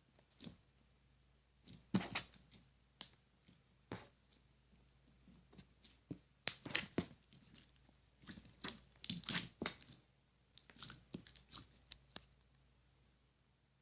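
Slime being squeezed and poked by hand, giving short, irregular crackles and pops in loose clusters, thickest between about six and ten seconds in.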